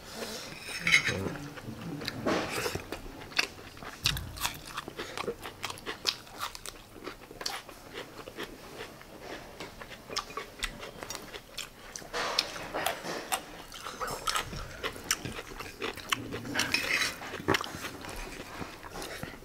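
Eating at the table: chewing, with many small clicks and clinks of a spoon and fingers against ceramic plates as rice is mixed with gravy. Faint voices come in briefly a few times.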